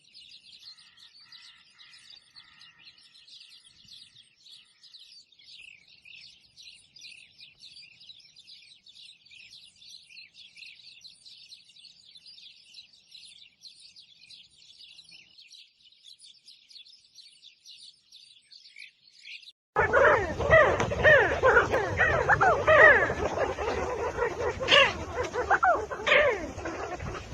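A flock of small wild birds twittering, with dense, overlapping high chirps. About two-thirds of the way through the sound cuts abruptly to much louder, lower-pitched voices.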